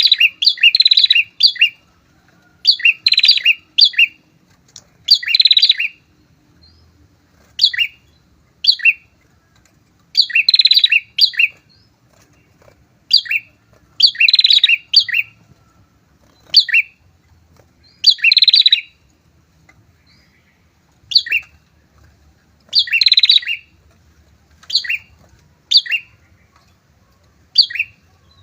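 A pair of prinias (Indonesian 'prenjak') calling loudly and persistently: high, rapid chattering phrases about half a second to a second long, repeated every one to two seconds, with shorter single chirps between.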